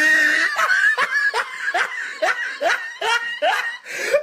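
A person laughing in a run of short snickering bursts, each rising in pitch, about two to three a second, cut off suddenly at the end.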